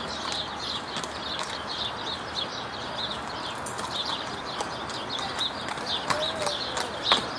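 Horse's hooves clip-clopping at a walk on asphalt, a steady run of light strikes, with a louder one near the end as the horse comes close.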